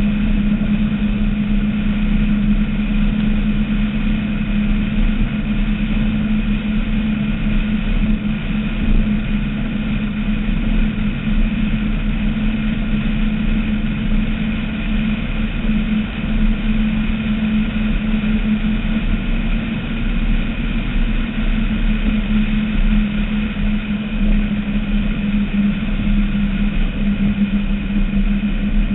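Skater catamaran powerboat's engines running steadily while underway, a constant drone with a strong low hum and a rushing noise beneath it.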